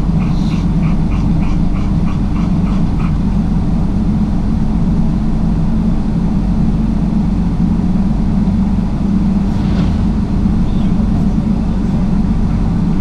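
Sprinter motorhome on the move: a steady, loud engine and road rumble. A quick light ticking, about four a second, runs through the first three seconds.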